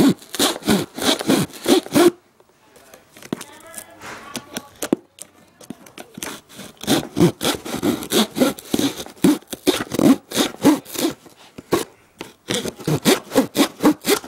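A blade sawing back and forth at a cardboard box in quick strokes, about four a second. It comes in runs: one at the start, a pause of a few seconds, then two more runs.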